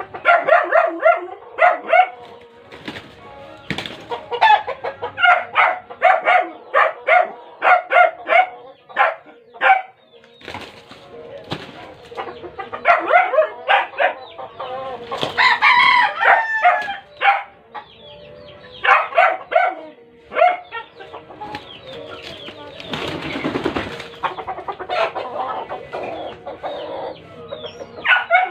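Chickens clucking in quick runs of short calls, with a rooster crowing about halfway through and a brief flurry of flapping wings a few seconds later.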